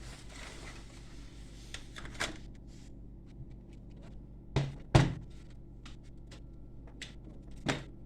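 A few sharp knocks and clatters of objects being handled on a workbench, the loudest about five seconds in, over a steady low electrical hum.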